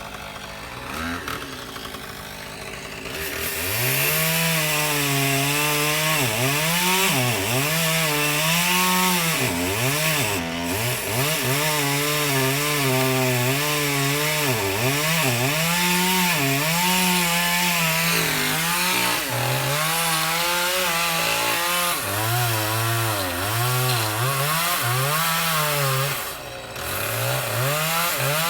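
Chainsaw cutting into a tree. Its engine pitch dips and recovers again and again as the chain loads up in the wood. It runs quieter for the first few seconds, then at full throttle, easing off briefly near the end.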